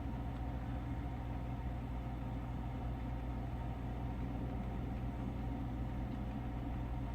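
Single-serve pod coffee maker heating its water and starting to brew: a steady low hum with no change.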